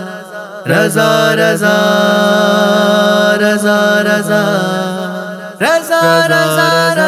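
Devotional vocal music intro: a layered, wordless vocal drone held on a steady chord over a low sustained note. A rising swell comes in about a second in and again near the end.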